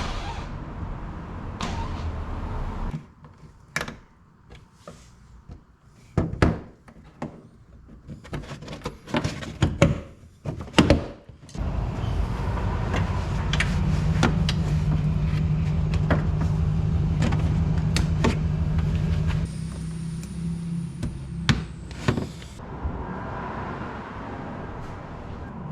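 Scattered clicks and knocks of a car's doors and fittings being handled, then a steady low hum of the car running for several seconds about halfway through.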